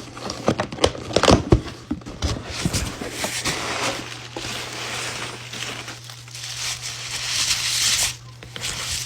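Packaging of a hazelnut spread being opened by hand: a few sharp knocks in the first two seconds, then a long stretch of crinkling and tearing of wrapping that stops suddenly about eight seconds in.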